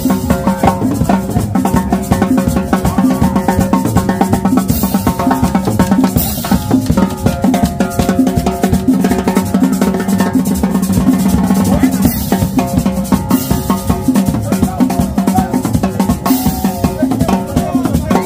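Dance music with a busy drum-kit beat under steady melody lines, with a few cymbal crashes along the way.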